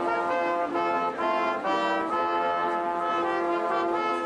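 Brass music playing a slow tune in held notes.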